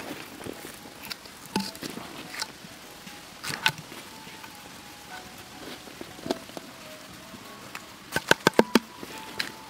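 Hands mixing small fish with crushed leaves and chilli on a banana leaf: scattered crackles and clicks, with a quick run of about six sharp clicks a little after eight seconds in, the loudest sounds.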